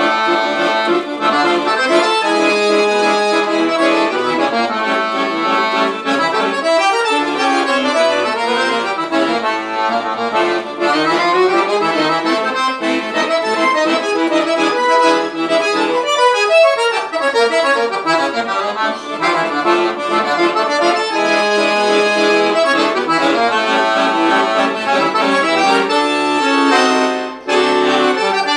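Scandalli piano accordion played solo, a moving melody over sustained chords, with a short break in the sound near the end.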